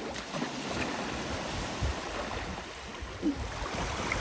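Steady wash of sea water with waves, with a few faint knocks.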